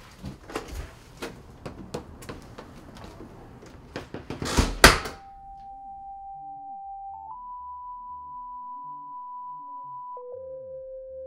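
Irregular knocks and clatter, ending in two loud thumps, then a plain electronic tone held steady. The tone steps up in pitch about two seconds later and drops to a lower note near the end.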